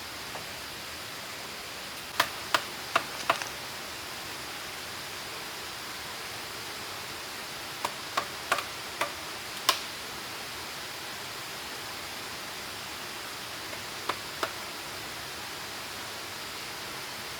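Steady rushing of a waterfall, with groups of sharp knocks from tool strikes on wood or bamboo: four quick knocks a couple of seconds in, five more near the middle, and two near the end.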